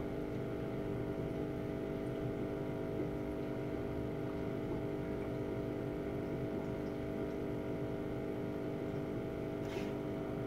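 Steady mechanical hum carrying several steady tones, with one faint click near the end.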